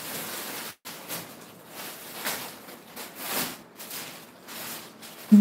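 Rustling of a dupatta being pulled out of its packing, in uneven swells of hiss. A loud electronic chime starts right at the end.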